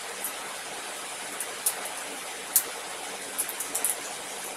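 Cooked prawns being shelled and eaten by hand: a few small, sharp clicks and crackles scattered over a steady background hiss.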